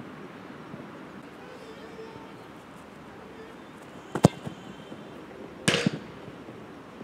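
A football kicked hard in a free kick: one sharp, loud crack of the boot striking the ball about four seconds in, followed about a second and a half later by a longer, rougher thud as the ball hits the goal.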